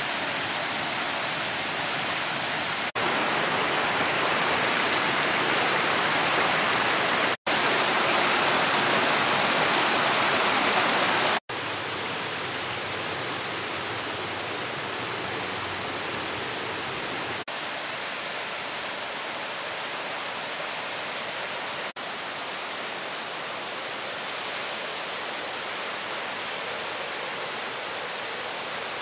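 Steady rush of falling water from a mountain waterfall and stream. The noise jumps in level at edits, cutting out briefly about 7 and 11 seconds in.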